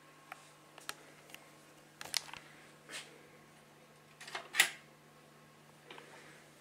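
Scattered mechanical clicks and knocks from the Turner 202 turntable's front control buttons being worked by hand, the loudest about four and a half seconds in, over a faint steady hum.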